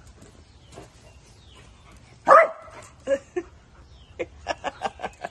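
A dog barking: one loud bark a little over two seconds in, two shorter barks about a second later, then a rapid string of short barks near the end.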